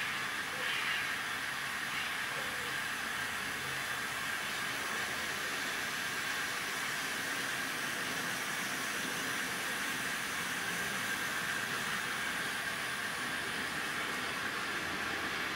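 N gauge model train, a Kato E8 diesel locomotive without a sound decoder hauling a long rake of freight cars, rolling along the track: a steady whirring hiss of wheels on the rails and motor. A sound-equipped model steam locomotive, an SP AC12, is faintly audible behind it.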